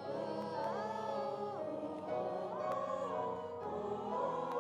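Choir singing in several parts, holding long notes that slide from one pitch to the next over steady low notes.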